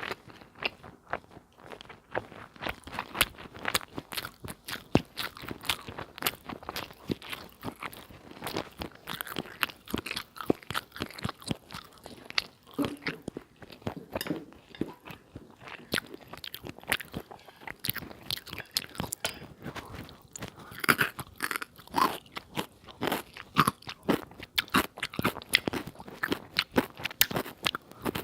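Close-miked eating of crisp, crunchy food: a dense, irregular run of crunching bites and chewing.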